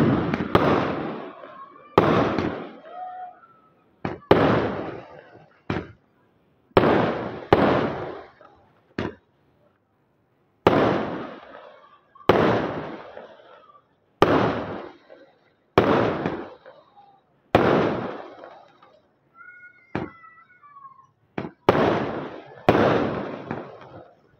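Aerial fireworks bursting overhead: a string of sharp bangs, one every one to two seconds, each dying away in a rolling echo, with a brief pause about nine seconds in.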